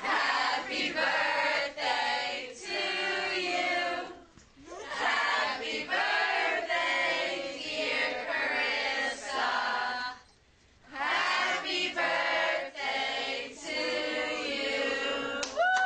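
A group of voices singing together in three long phrases, with short pauses between them.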